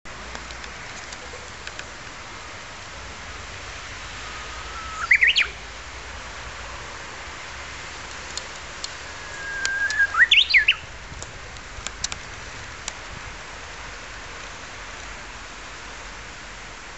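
A Japanese bush warbler (uguisu) gives its 'hoo-hokekyo' song twice, about five seconds apart. Each song is a long, steady whistled note that breaks into a quick rising and falling flourish.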